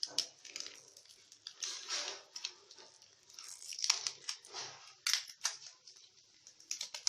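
A small vanilla sachet being torn open and crinkled as its powder is shaken into the bowl: a run of irregular rustles and crackles.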